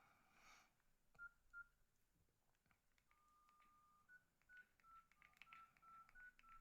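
Faint Nokia N73 keypad beeps as a code is keyed in to show the phone's talk-time counter. Two short beeps come about a second in, a longer steady beep around three seconds, then a quick run of short beeps at slightly varying pitches.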